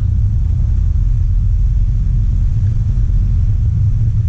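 Steady low rumble of an angkot minibus's engine and road noise, heard from inside the cabin while it drives.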